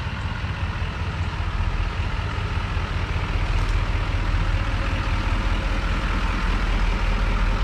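A 2020 GMC Sierra Denali HD's Duramax turbo-diesel running as the truck drives: a steady, deep engine and road rumble that swells slightly.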